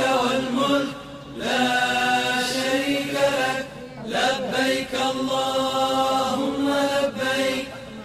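Background music: a single voice chanting in long held notes, in phrases separated by short breaths.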